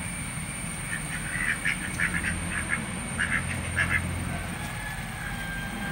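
Background bird calls: clusters of short, rapid notes that recur every second or so, over a faint low hum.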